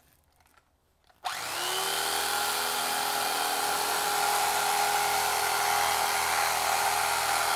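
Electric carving knife switched on a little over a second in, its motor spinning up and then running steadily as its blades cut through the foam insert of a hard case.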